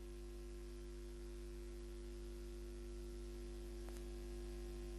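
Faint steady electrical mains hum with a buzz of overtones and a light hiss, the sound of an idle audio line with no commentary on it. A faint tick about four seconds in.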